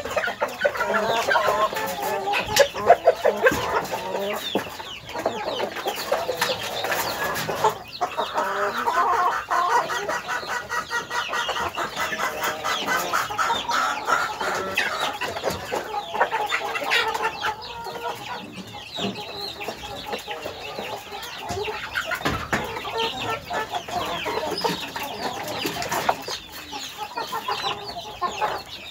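A flock of domestic chickens clucking continuously, many short calls overlapping, with a few sharp taps scattered through.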